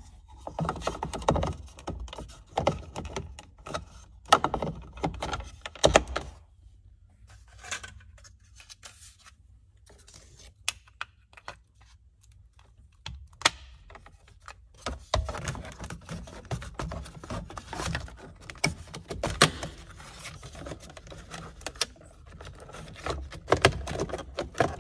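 Handling noises of interior trim parts and tools being worked on: scattered clicks, knocks and rattles of plastic and metal, busy in the first few seconds, sparse for a while, then dense again for the last third.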